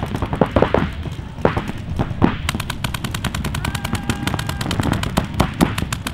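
Paintball markers firing: scattered shots at first, then from about two and a half seconds in a fast, even string of rapid-fire shots.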